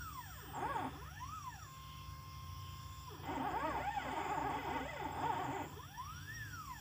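Stepper motors of a CNC pen plotter whining as they drive the pen across the board. The pitch rises and falls with each move: a long arching whine, then a steady whine, then a busy flurry of short rising and falling whines in the middle, and another arching whine near the end. A low steady hum runs underneath.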